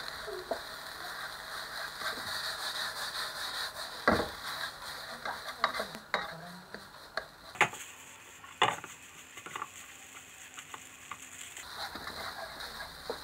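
Fried rice sizzling in a non-stick wok while a wooden spatula stirs and scrapes through it. A few sharp knocks of the spatula on the pan come in the middle, the loudest about four seconds in.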